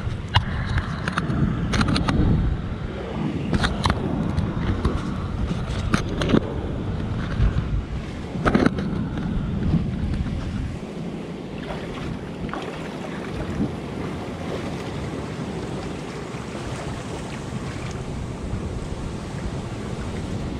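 Surf washing over a rocky shore and around a shallow rock pool, with wind buffeting the microphone. Sharp splashes and knocks come through the first half, then settle into a steadier wash of water.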